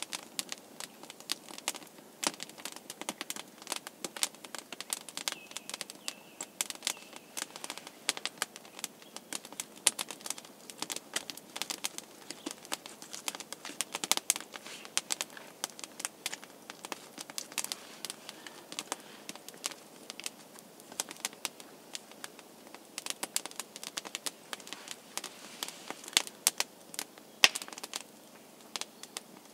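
Wood campfire crackling and popping, with many sharp, irregular snaps from burning wood throwing sparks.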